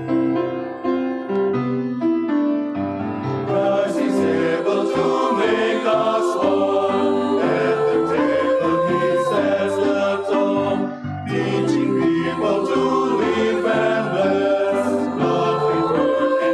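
Mixed church choir singing a hymn with piano accompaniment. The piano plays alone at first, and the choir comes in about three and a half seconds in.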